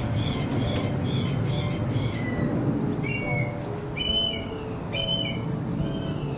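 A bird of prey calling: a fast run of harsh repeated calls, about four a second, for the first two seconds, then single high, arched, falling whistled calls about once a second.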